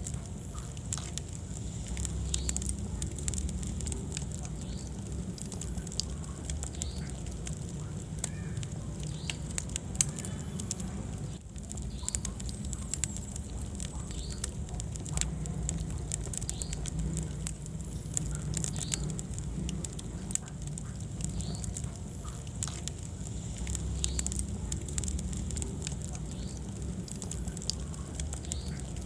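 Wood fire burning in a fireplace: dense crackling and snapping over a steady low rumble of flame, with occasional short squeaks.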